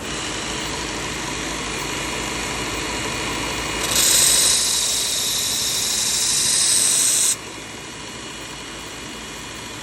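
Work Sharp Ken Onion belt sharpener running with a 120-grit 3M Cubitron belt. About four seconds in, a loud hissing grind starts and lasts about three and a half seconds as the carbon-steel blade is pressed to the belt. It then cuts off suddenly and the motor runs on alone.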